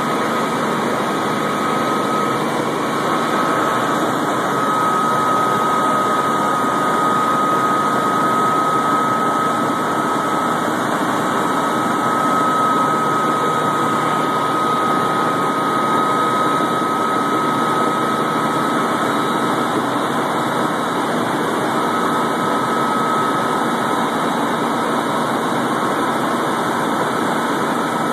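Helicopter in flight heard from inside the cabin: loud, steady engine and rotor noise with a steady high whine that fades briefly about two-thirds of the way through.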